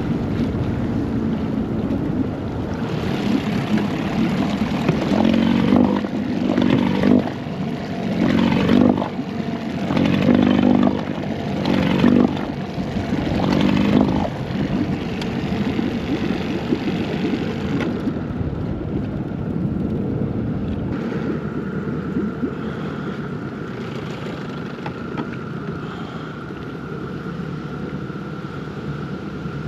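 Small fishing boat's motor running as the boat heads off through weedy water. The noise is uneven and surging for roughly the first dozen seconds, then settles into a steadier run with a thin whine.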